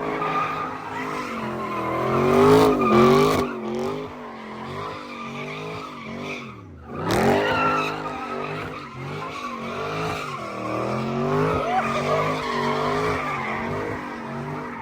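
Car engine revving hard at high revs, its pitch wavering up and down, while the tires squeal in a sustained spin at an intersection sideshow. About halfway through the revs drop briefly, then climb again.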